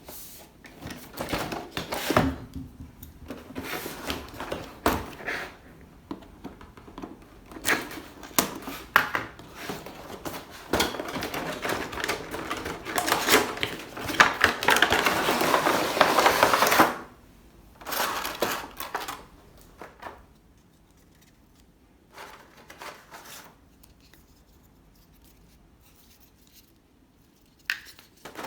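Hands unpacking and handling a plastic toy gun set: irregular plastic clicks and knocks, with rustling of packaging. There is a dense continuous stretch of rustling about eleven to seventeen seconds in, then only a few faint handling noises.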